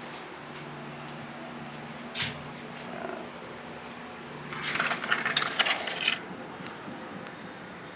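Light metallic clicking and rattling of small hardware: one sharp click about two seconds in, then about a second and a half of jingling, clattering clicks.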